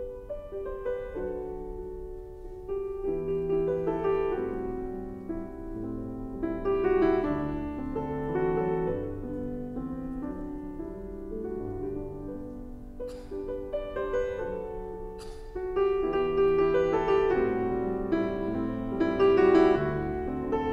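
Background piano music: a slow, gentle solo piano piece.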